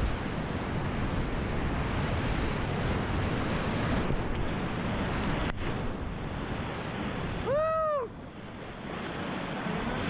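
Rushing whitewater of a river rapid, with wind buffeting the microphone. About three-quarters of the way through, a short high call rises and falls in pitch over half a second.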